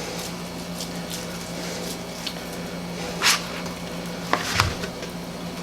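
Hands squishing and rolling a wet ground beef mixture into meatballs, with a sharp crackle about three seconds in and a couple of knocks near the end, over a steady low hum.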